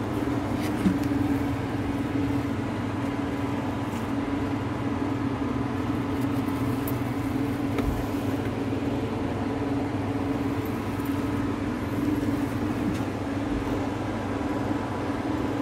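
Steady mechanical hum with a low drone holding an even pitch, and a few faint clicks.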